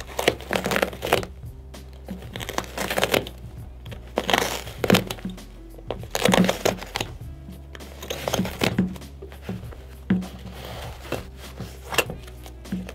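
A small hand blade slitting open a padded skate shoe's tongue and upper in short strokes, giving about seven crinkling, ripping bursts roughly two seconds apart, over background music.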